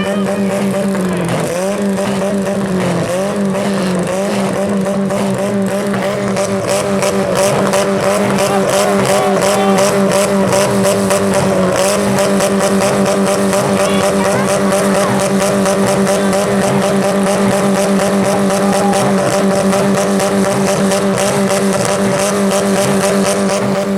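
Demolition derby compact cars' engines running hard, one held at high, steady revs after a brief dip in pitch in the first few seconds.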